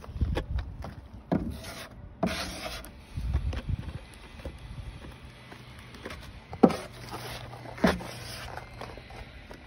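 A plastic spreader scraping epoxy out of a plastic cup and across a boat transom panel: a few short, sharp scrapes, the loudest about two-thirds of the way in, over low handling rumble.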